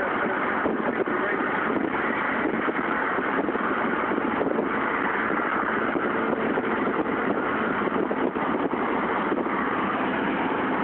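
Steady road and wind noise of a pickup truck driving at highway speed, heard inside the cab.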